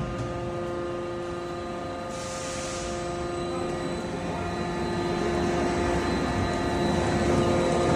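Silo-panel roll forming machine running: a steady machine hum with several steady whining tones, slowly growing louder.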